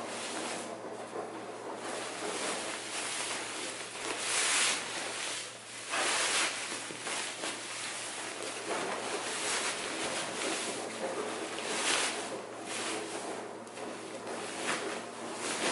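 Fabric rustling and brushing as a cushion insert is pushed and worked into a bobbled cotton IKEA Svartpoppel cushion cover. There are louder swishes about four seconds in, around six seconds, and twice near the end.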